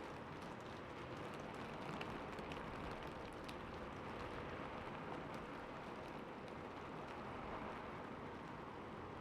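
Steady rain falling on a rooftop, an even hiss with scattered faint drop ticks.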